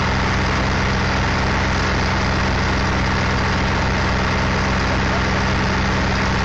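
An engine idling steadily with a constant low hum and an even hiss above it.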